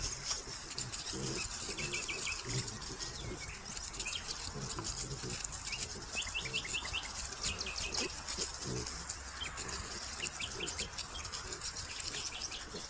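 Wild boars grunting now and then and rooting through dry leaves as they forage. Over them, small birds give quick runs of high chirps.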